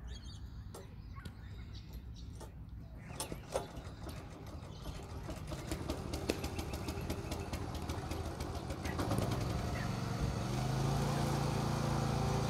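Engine of a cricket pitch roller starting up: a quickening run of firing strokes from about five seconds in, then running steadily and louder from about nine seconds in.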